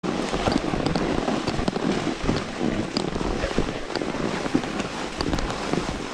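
Snow crunching and scraping under a rider sliding slowly over hard, groomed piste: a continuous rough noise full of small crackles, with wind buffeting the microphone.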